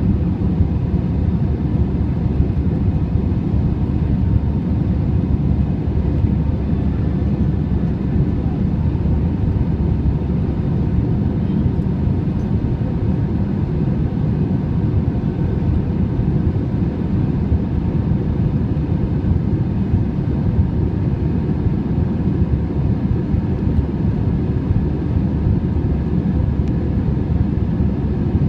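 Steady low jet engine and airflow noise heard inside the cabin of an Airbus A319 climbing after takeoff, with a faint steady hum above it.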